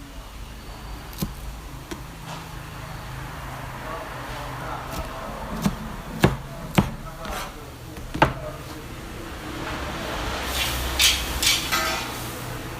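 Restaurant kitchen at work: sharp knocks and clacks of utensils and cookware, several loud ones in the middle, over a steady low hum. A short burst of hissing clatter comes near the end.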